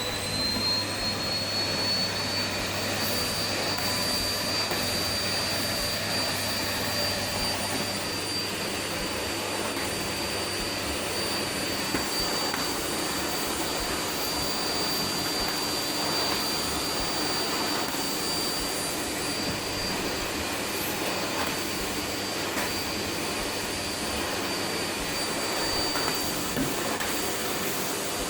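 Vacuum cleaner switched on, its motor whine rising to speed in the first second, then running steadily with a high whine over a rushing airflow.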